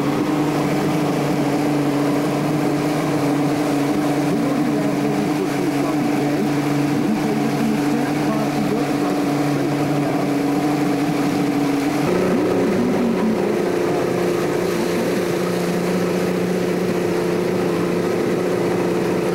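V6 outboard motor running steadily at speed and pushing the ski boat along, with the hiss of the churning wake. About twelve seconds in, the engine note steps up a little and then holds at the higher pitch.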